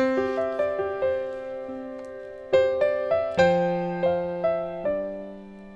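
Background music: a gentle keyboard melody of single struck notes, each ringing and fading, with a low note held under it.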